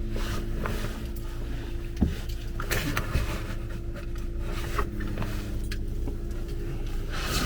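A steady low mechanical hum with a constant tone, and a few sharp clicks or knocks about two and three seconds in.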